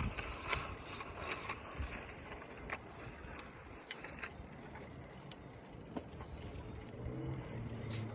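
Quiet outdoor night ambience: a faint steady high-pitched tone through the middle, scattered light clicks, and a low hum that comes in near the end.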